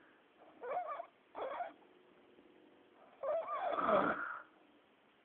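A man snoring in irregular breaths, two short ones about a second in and then a longer, louder one, each with a squealing pitch that slides up and down, likened to a warthog or wild boar.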